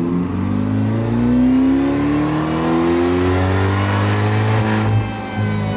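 Supercharged LT2 V8 of a C8 Corvette accelerating under load on a chassis dyno, its pitch climbing steadily, with a brief drop about five seconds in as it shifts gear.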